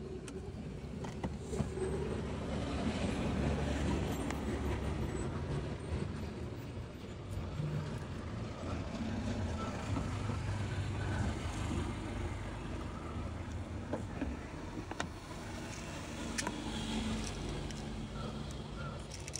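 Road traffic: vehicle engines running and passing in a steady low rumble, with a few sharp clicks.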